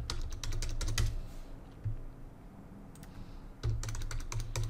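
Computer keyboard being typed on in two short runs of keystrokes, one at the start and one near the end, with a lull between.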